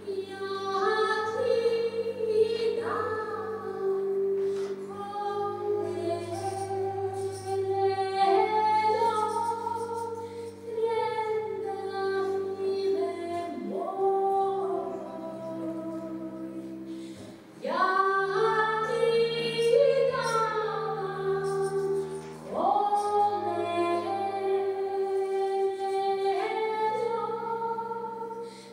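A woman sings a Serbian traditional-style melody live, scooping up into her notes, with two short breaks between phrases. Long low double-bass notes and a violin accompany her.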